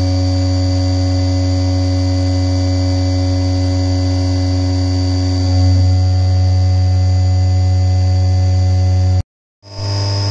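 CNC vertical mill roughing an aluminium block with an indexable milling cutter under flood coolant: a steady cutting hum with several held tones. It gets a little louder about halfway through, and breaks off abruptly for a moment near the end before the cutting sound resumes.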